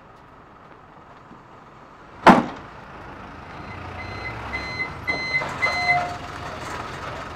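A single loud thump about two seconds in, then a garbage truck's engine rumbling as it backs up. Its reversing alarm beeps five times, about twice a second.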